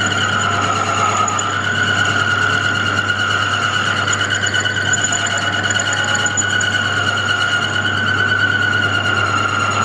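Metal lathe drilling out a bronze propeller hub with a twist drill fed from the tailstock, enlarging the bore toward 25 mm: a steady high-pitched whine from the cut, with overtones, over the lathe's low motor hum.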